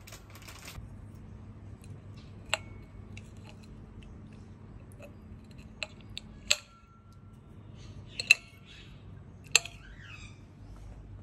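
Stainless steel spoon and fork clinking against a ceramic plate as food is cut apart and lifted. About five sharp clinks, each with a brief ring, the loudest a little past the middle, over a faint steady low hum.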